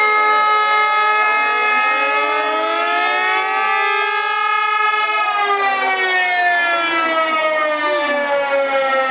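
Siren wailing: several tones rise together over about five seconds, then slowly fall again.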